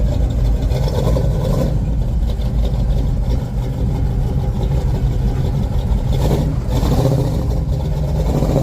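Car engine running steadily, with a louder surge about a second in and again about six seconds in.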